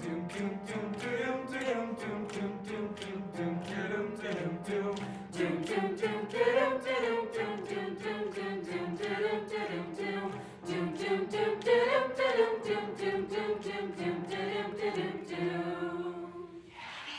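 High school choir singing unaccompanied, many voices in harmony, stopping together at the end of the song.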